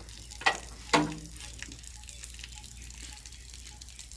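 Water hissing and gushing out at a tractor's rear tyre valve as the tyre's water ballast is let out, with two brief sharp knocks about half a second and a second in.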